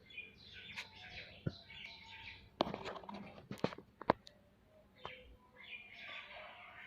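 Small birds chirping and chattering, with a few sharp clicks or taps in the middle.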